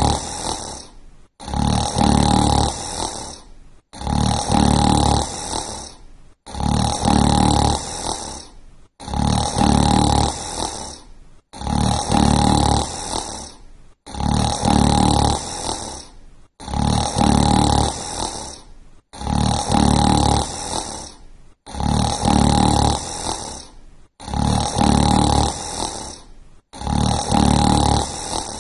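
Snoring in a steady rhythm, about one snore every two and a half seconds, each starting loud and tailing off before a brief gap.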